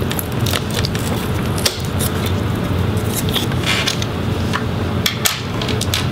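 Irregular light clicks and taps from hands handling the parts and chassis of an opened laptop during disassembly, over a steady low hum.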